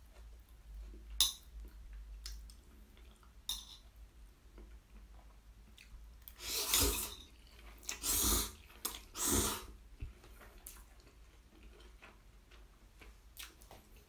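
Black bean instant noodles slurped in three loud slurps about a second apart. Earlier there are a couple of sharp clicks of metal chopsticks against a bowl.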